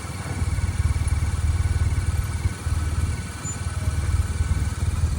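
Heavy wind buffeting on the microphone while riding a 2005 BMW R1200RT motorcycle: a loud, ragged low rumble that drowns out the bike.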